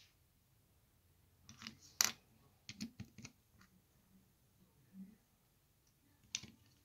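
Plastic LEGO pieces clicking and tapping on a wooden tabletop as they are picked up and fitted together: scattered sharp clicks, the loudest about two seconds in, a quick cluster around three seconds, a dull tap about five seconds in and one more click near the end.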